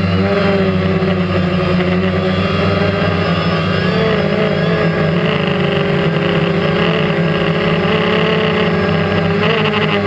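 DJI Phantom quadcopter's motors and propellers buzzing steadily in flight, heard from the camera mounted on the drone; the pitch wavers slightly as it turns.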